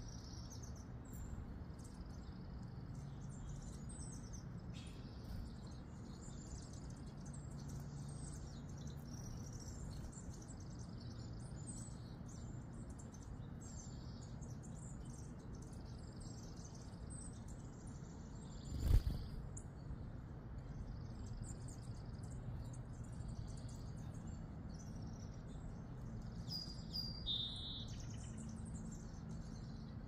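Small songbirds chirping, many short high calls overlapping throughout, over a steady low background noise. A single sharp knock about 19 seconds in is the loudest sound.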